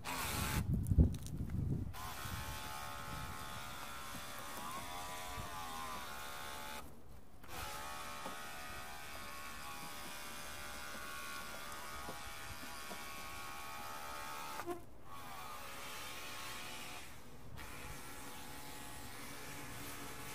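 Baseus battery-powered car-wash pressure gun's electric pump running with a steady motor whine while it sprays foam and water. The pitch dips and recovers a few times, and the sound cuts out briefly three times. There is a short loud burst of noise about a second in.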